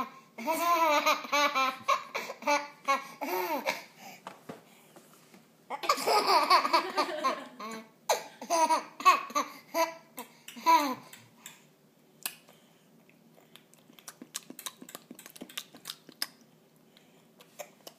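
Baby laughing in two long bouts of rapid, bouncing giggles, the second starting about six seconds in. Laughter stops about eleven seconds in, leaving only scattered faint clicks and rustles.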